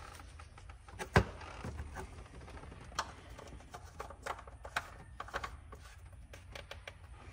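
Scattered sharp clicks and light knocks from handling things by hand, with one louder knock about a second in, over a low steady hum.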